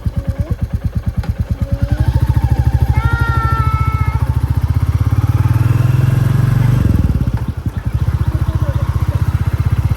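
Royal Enfield Classic 350's single-cylinder engine thumping in a steady, even beat, getting louder as the throttle opens about two seconds in, then easing off sharply around seven seconds before settling back into its beat. A horn sounds for about a second around three seconds in.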